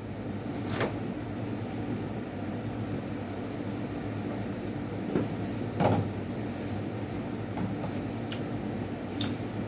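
Eating sounds: a few sharp clicks and crunches, the loudest about six seconds in, over a steady low hum.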